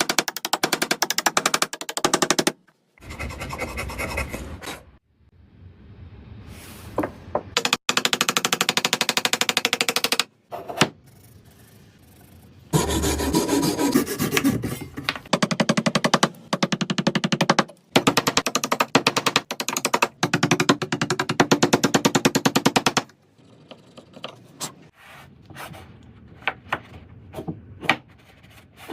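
Woodworking tools at work: rapid, machine-like rattling strokes in several separate bursts that start and stop abruptly, with quieter stretches between them.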